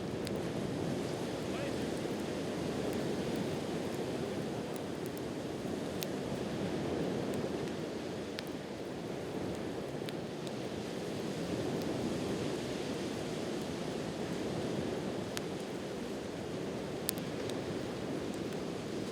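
Steady wash of sea waves on the shore, with a few sharp crackles from a wood campfire.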